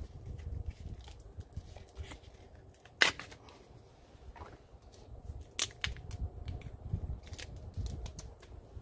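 Wind rumbling on the microphone, with scattered sharp clicks and knocks from a plastic blister pack and metal pellet tins being handled on a steel table. The sharpest click comes about three seconds in, and another about halfway through.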